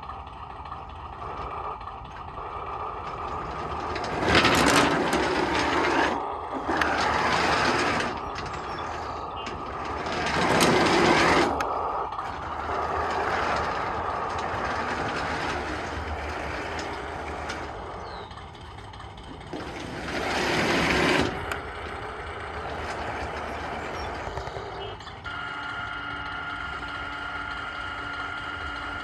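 1/16 Tamiya RC Sherman M4A3E8 model tank running under radio control, its drive making a mechanical whir as it moves and turns. The sound swells louder three times, about four, ten and twenty seconds in, and settles into a steady hum with a held tone for the last few seconds.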